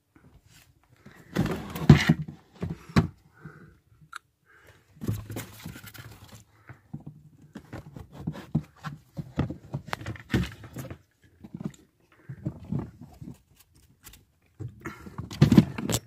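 Plastic tubs and canisters being knocked and shifted about: a series of irregular thumps, clunks and scrapes, loudest about two seconds in and again near the end.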